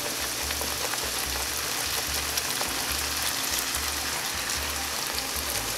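Pieces of rolled-out bread dough (fry bread) sizzling steadily as they deep-fry in hot canola oil.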